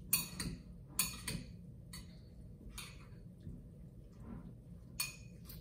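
A spoon clicking against a bowl now and then while stirring a chopped tomato and basil bruschetta mixture: a handful of short, irregular clicks.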